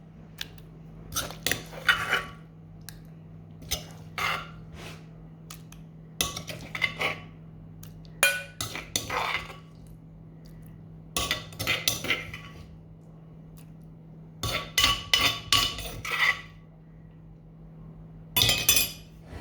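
Dishes and a spoon clinking and clattering against a bowl in irregular clusters of sharp clicks every couple of seconds.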